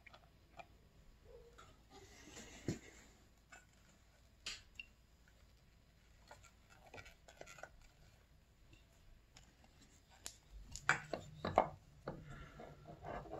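Quiet handling sounds as a snowmobile engine's stator plate and its wiring are fitted over the crankshaft into the engine case: scattered light clicks and taps, then a cluster of louder knocks and scrapes near the end.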